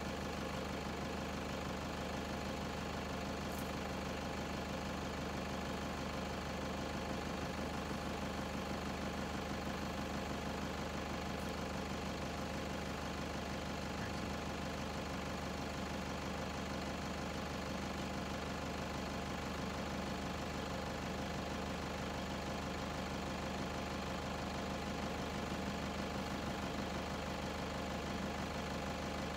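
Game-drive vehicle's engine idling steadily at a constant, even level.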